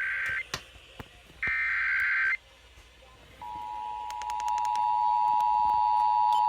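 Emergency Alert System digital data bursts from a weather radio: two short, harsh, buzzy screeches about a second apart. A steady alert tone then starts about halfway through and holds.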